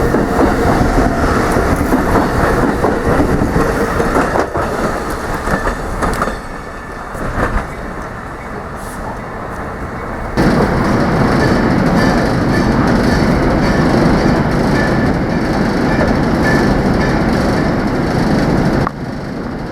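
A train running on rails, with steady wheel-on-rail noise. The sound steps suddenly louder about halfway through and drops sharply near the end.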